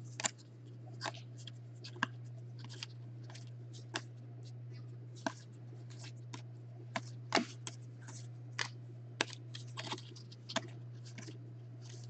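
Panini Contenders football trading cards being flipped through one at a time in the hand, each card slipping off the stack with a light click or snap, irregularly about one or two a second. A steady low hum runs underneath.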